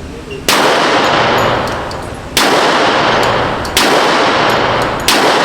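Four single gunshots fired at an uneven pace, each with a sharp crack followed by a long echoing tail that rings out in an indoor shooting range.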